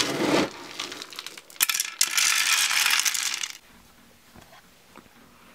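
Dry dog kibble being scooped from a storage bin and poured into a slow-feeder dog bowl: a short rattle at the start, then about two seconds of pellets clattering into the bowl, stopping suddenly.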